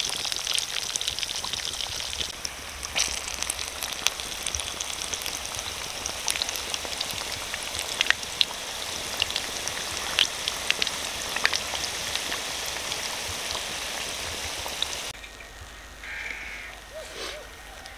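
Crumb-coated fish fingers deep-frying in hot oil in an iron karahi: a steady sizzling hiss dotted with sharp pops and crackles. About three-quarters of the way through, the sizzle cuts off to a quieter open-air background with a few brief calls.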